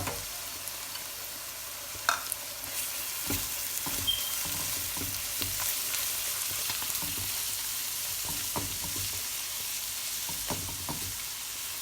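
Browned onions frying in hot oil with a steady sizzle while being stirred, a spoon clicking and scraping against the pan now and then, most sharply about two seconds in.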